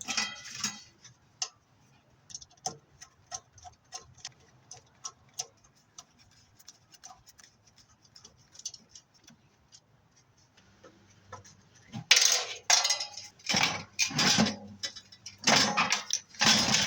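Furnace blower motor being taken apart by hand: small metal clicks and ticks come at an uneven pace, about two a second, for roughly ten seconds. In the last five seconds they give way to several loud metal scrapes and clanks as the motor's aluminum end cap and rotor are worked free.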